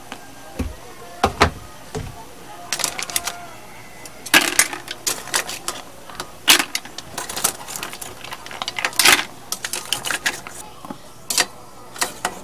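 Metal kitchen tongs clacking and scraping against an aluminium cooking pot and a plastic tub in quick, irregular clicks, with a few dull knocks in the first two seconds.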